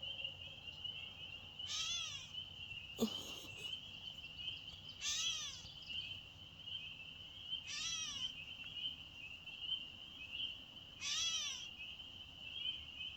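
Gray catbird giving its cat-like mewing call four times, each a short slurred 'meow' about three seconds apart. A continuous high, steady trill runs underneath throughout.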